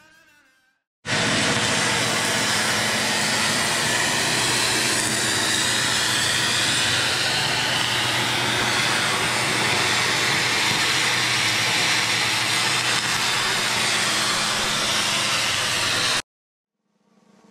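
Loud, steady noise of a power tool working on the metal boat hull. It cuts in suddenly about a second in and stops abruptly near the end.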